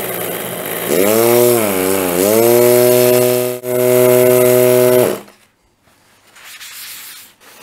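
Electric air horn, its small DC motor driving a rotary vane compressor, blowing a loud buzzing tone that is not quite right. Its pitch sags twice before holding steady, then cuts off about five seconds in. The owner thinks it simply needs more power than the supply gives.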